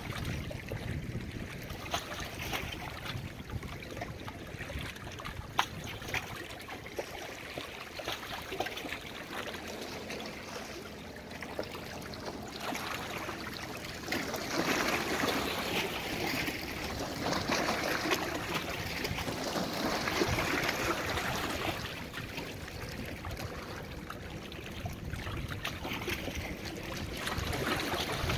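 Small waves on a lake lapping and washing against the shore in uneven swells, louder for a stretch in the middle. Wind buffets the microphone in the first few seconds.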